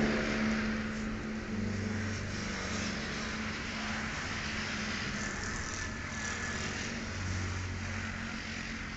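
A motor running steadily with a low hum, fading a little over the first second.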